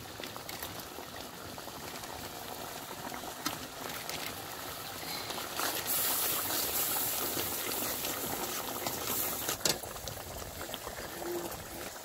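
Fish curry gravy boiling and bubbling in an iron kadai. About halfway through, a metal spatula stirs it and the bubbling grows louder for a few seconds, ending with a sharp click.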